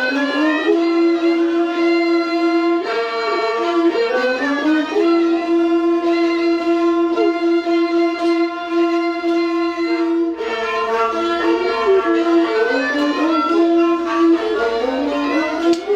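A solo bowed string instrument playing a Thai classical overture (homrong) melody, one line of long held and sliding notes with a short break about ten seconds in.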